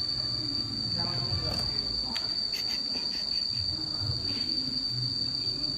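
A steady, unbroken high-pitched whine, with faint voices underneath.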